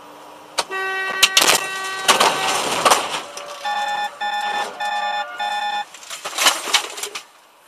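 A vehicle horn sounds steadily for about a second and a half, then blares in a run of quick repeated honks, while several loud bangs and crunches come as a white campervan sideswipes the vehicle, the last of them near the end.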